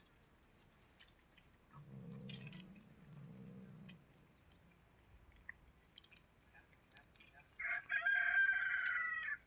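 A rooster crowing once near the end, a single drawn-out call lasting under two seconds.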